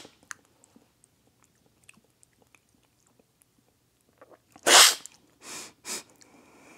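A loud cupping slurp about two-thirds of the way in: coffee sucked hard off a cupping spoon so it sprays across the palate. It is followed by two shorter, softer rushes of air.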